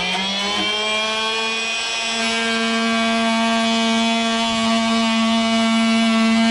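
Cordless oscillating multi-tool running steadily at a constant pitch, its blade cutting into rotten wood. The motor has just come up to speed and holds a steady buzz, getting a little louder after a couple of seconds.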